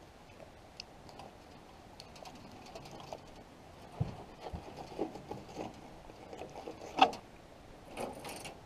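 Filleting a walleye with a knife on a wooden canoe paddle used as a cutting board: scattered soft taps, scrapes and small clicks as the fish and knife are handled. There is a low thump about four seconds in and a sharp knock about seven seconds in.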